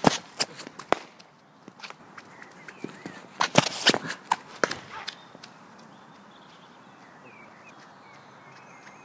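Irregular sharp knocks and thuds of cricket net practice, bunched near the start and again about halfway through, with a few faint bird chirps in the quieter second half.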